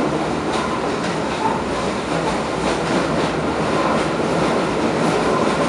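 Running noise inside a Berlin U-Bahn type A small-profile car under way: a steady rush of wheels on rail with light, irregular clicks.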